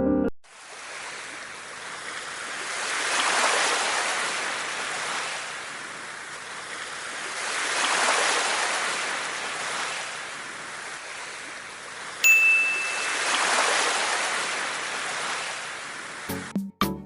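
Sea waves washing in and out, swelling and fading three times. A single brief high ding about twelve seconds in is the loudest moment.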